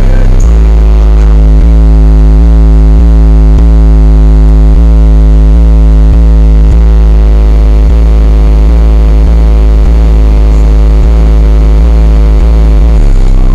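Loud, bass-heavy electronic music playing through a car stereo's subwoofers. The deep bass dominates under a repeating synth note that slides down in pitch about twice a second, and the pattern changes near the end.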